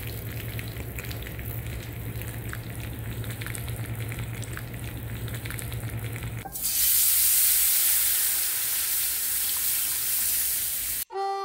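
Fat sizzling and crackling in a saucepan; about six and a half seconds in it gives way to a louder, steady hiss as chicken broth is poured into the hot melted butter and shortening.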